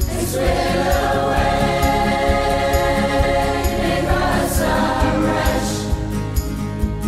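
Choir singing long held notes in Irish, backed by a steady beat in the accompaniment.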